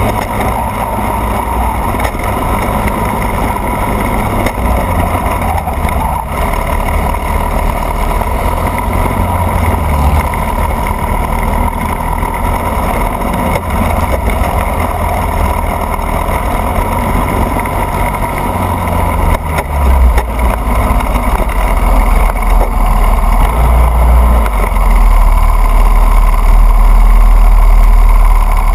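Racing kart engine running steadily at speed, recorded from an onboard camera, with a heavy low rumble of wind and vibration on the microphone that grows louder over the last several seconds.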